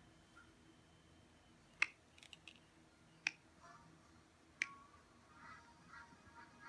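A young child grinding their teeth: three sharp clicks of tooth on tooth about a second and a half apart, with a few fainter ticks between the first two.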